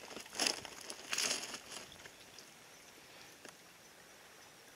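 Faint outdoor background noise, with two short scraping rustles in the first two seconds.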